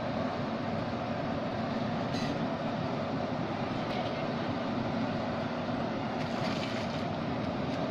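Steady roar of high-pressure gas burners under the cooking pots, with short hissy bursts about two seconds in and again between six and seven seconds.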